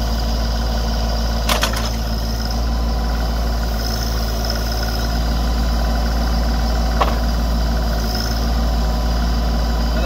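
Branson compact tractor's diesel engine running steadily while the BH100 backhoe arm is worked on the hydraulics, with a short clank about a second and a half in and a click near seven seconds.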